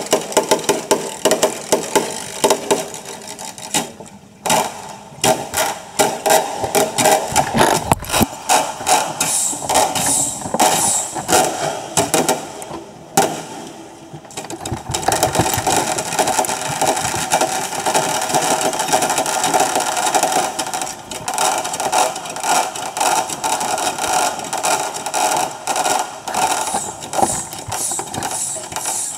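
Fireworks explosions sped up many times and played backwards, which turns them into a fast, dense rattle of clicks and pops. The rattle thins briefly twice.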